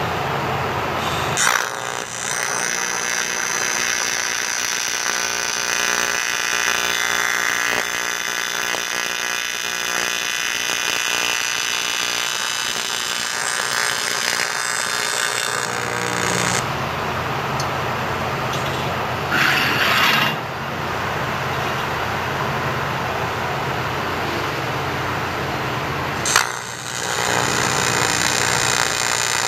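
AC TIG welding arc on aluminum buzzing steadily as the bead is laid, struck about a second and a half in. A brief hissy change comes about twenty seconds in, and a sharp crack near the end.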